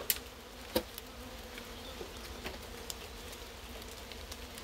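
Swarm of honeybees buzzing around an open hive, a steady hum, just after being shaken in from their nucleus box. Two short knocks come in the first second.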